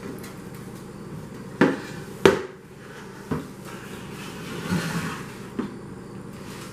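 A metal sheet pan and a glass bowl knocking on a countertop as the bowl and pan are flipped over together and set down: two sharp knocks about a second and a half in, the second the loudest, then lighter knocks and a brief scrape as the bowl is shifted on the pan.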